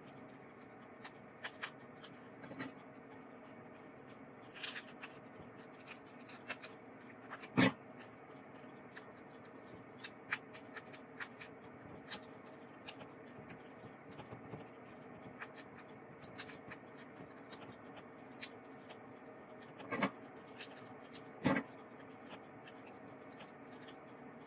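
Hands shelling a lobster tail: faint scattered clicking and crackling of the shell as it is worked loose from the meat, with a few sharper cracks, three of them louder than the rest.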